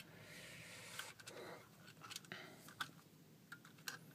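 Faint handling noise of a small plastic interior lamp assembly and its lens being turned over by hand: a scatter of light plastic clicks and taps with some soft rubbing.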